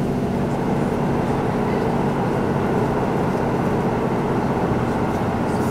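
Onboard running sound of a KiHa 183-series diesel express car: the underfloor diesel engine drones at a steady pitch over the rumble of wheels on the track.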